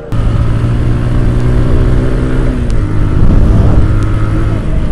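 TVS Apache RTR 160's single-cylinder four-stroke engine running under way at a steady speed, heard over wind rumble on a helmet-mounted microphone. The engine note shifts about halfway through.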